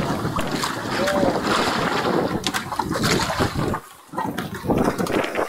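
Wind buffeting the microphone, with scattered knocks and clatter. A short voice sounds about a second in, and the wind noise drops away for a moment near four seconds.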